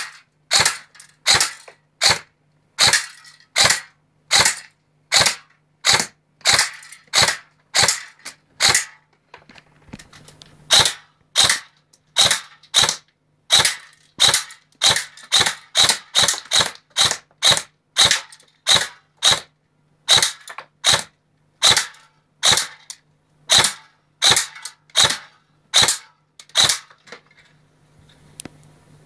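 Systema M4A1 electric airsoft rifle firing single shots in semi-auto, about forty sharp snaps at roughly one to two a second, with a short pause around nine seconds in; the shooting stops a couple of seconds before the end.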